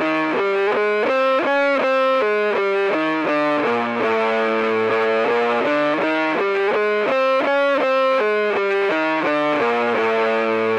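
Soundtrack music led by a distorted electric guitar playing a melody of quickly changing single notes.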